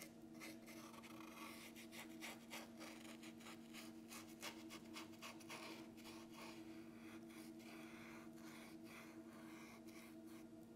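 Faint, irregular scratchy strokes of a paintbrush detailing paint onto the bunny cut-out, over a steady low hum.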